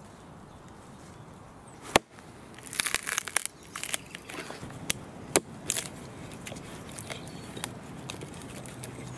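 A small axe strikes a log with one sharp knock about two seconds in, then the wood crackles and cracks as the blade is worked into it and the log splits, with a few further sharp cracks.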